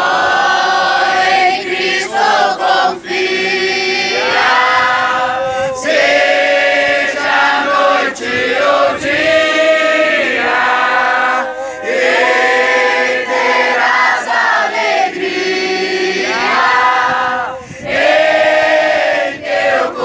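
A large group of young men and women singing together, their voices in sung phrases with short breaks between them.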